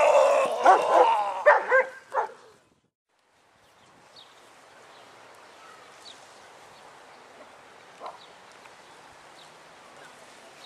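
A dog barking and yelping rapidly and loudly for about two seconds, then cutting off suddenly. After that only faint outdoor background noise with a few short, faint high chirps.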